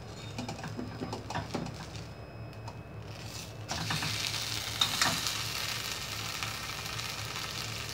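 Oat crepe frying in a lightly oiled stainless steel pan, with a metal spatula clicking against the pan as the crepe is turned over. The sizzle grows louder a little under four seconds in, as the crepe settles onto its other side to brown.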